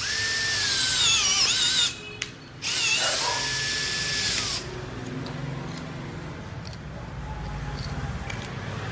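Cordless drill driving a cone-type flaring tool to flare a copper pipe end: the motor whines in two runs of about two seconds each with a short pause between, its pitch sagging and wavering under load in the first run. Faint handling clicks follow as the tool is taken off.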